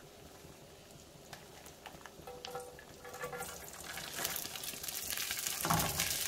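Cold cooked rice, chilled in the freezer, dropping into hot oil in a frying pan: faint at first, then sizzling and crackling more and more from about two thirds of the way in, with a soft thump near the end as a clump of rice lands in the pan.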